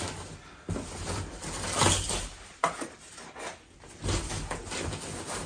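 Rummaging in a shopping bag and handling packaged items: irregular rustling and scuffing with a few sharp clicks.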